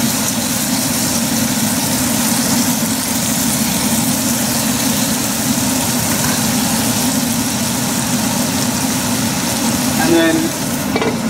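Steady hum and hiss of chicken and coriander frying in a wide pan on a gas stove.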